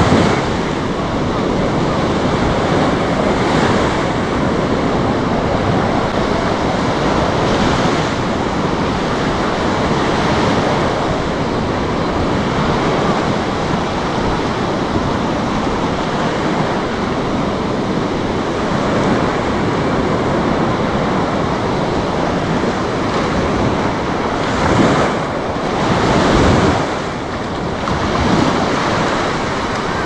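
Sea waves breaking and washing up on a sandy beach, a steady wash that swells every few seconds, with wind buffeting the microphone.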